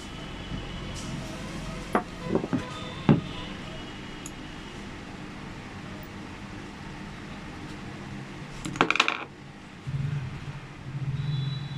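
Small metal lock parts and tools clinking: a few sharp metallic clicks about two to three seconds in and a brief rattle near nine seconds, as a car door lock is taken apart by hand.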